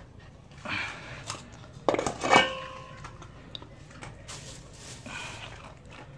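A metal dog bowl clatters on a concrete floor about two seconds in and rings briefly, among softer sniffing and crunching of dry kibble by dogs eating.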